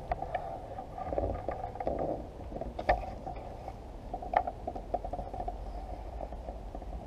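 Handling noise from a hand-held camera being carried on foot: a low, uneven rumble with scattered knocks and clicks, two of them sharper about three and four and a half seconds in.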